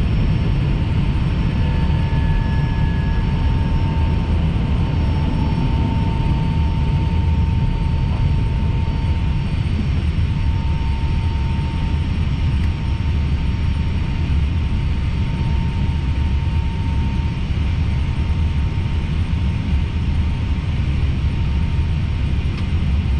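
Steady flight-deck noise of an Airbus A320neo in the climb: a low rumble of airflow and engines, with a faint steady whine above it that thins out about halfway through.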